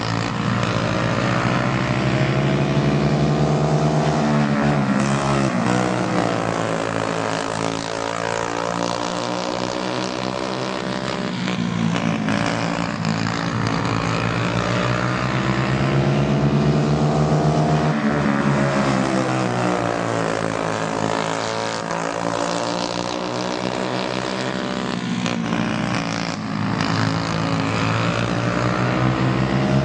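Several Briggs & Stratton Animal single-cylinder four-stroke kart engines racing on a dirt oval, their pitch repeatedly rising and falling every few seconds as the karts lap the track.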